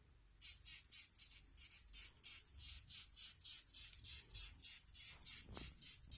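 A hawk moth giving a rapid series of short, high-pitched hissing chirps, about three a second, starting about half a second in.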